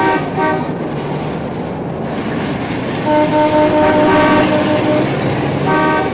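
Busy city street traffic with car horns honking: one horn sounding at the start, a longer one from about three to five seconds in, and another near the end.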